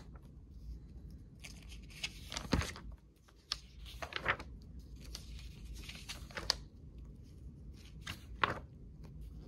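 Paper pages of an old school textbook being turned by hand: a series of short paper rustles and swishes, the loudest about two and a half seconds in and again near the end.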